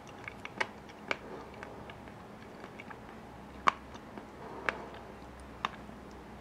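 Scattered light clicks and ticks from a glass bowl of wet, freshly rinsed strawberries: five sharper clicks spaced out over several seconds among fainter taps, over a faint low hum.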